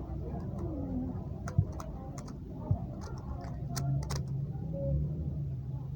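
Plastic Rubik's cube being twisted layer by layer: a scatter of quick, irregular clicks, with two duller knocks, the first about a second and a half in and the second about a second later.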